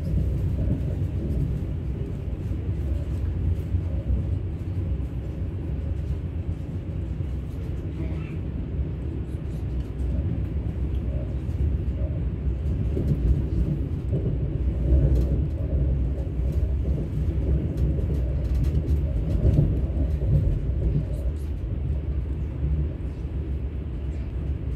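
Steady low rumble of an ES2G Lastochka electric train running along the track, heard from inside a passenger car.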